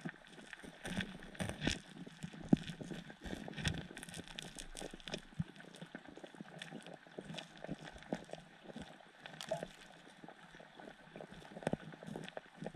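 Underwater sound of carp feeding over gravel: irregular sharp clicks and knocks, several a second, over a steady watery hiss.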